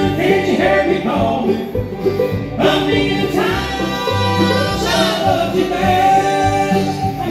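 Live bluegrass band playing through a PA system, with banjo, mandolin, acoustic guitar and upright bass.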